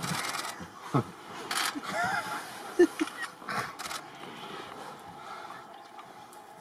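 African wild dogs giving a few short, high twittering calls around the middle, amid brief bursts of rustling noise.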